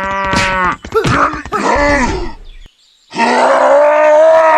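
Loud, drawn-out groaning and grunting calls, several short ones and then one long call after a brief gap about three seconds in.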